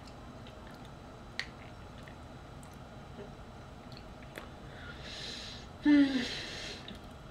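Mouth and eating sounds from someone tasting a pineapple cake: a few faint chewing clicks, then about six seconds in a short, loud breath through the nose with a brief falling hum.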